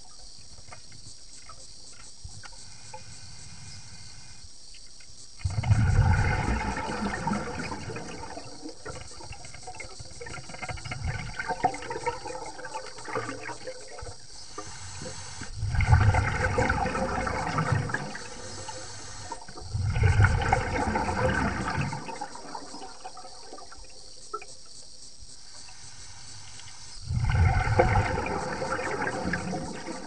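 A diver's exhaled breath bubbling out underwater, in four bursts a few seconds apart, over a steady faint hiss.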